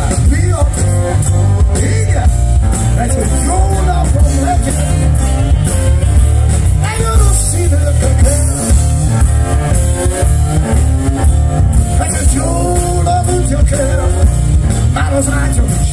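Live rock-blues band playing loudly: heavy bass and drums under saxophone and keyboard, with a singer's voice at times.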